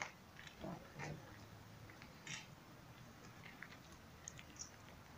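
Near quiet, broken by faint scattered clicks and crunchy rustles, with a brief low murmur of a voice about a second in.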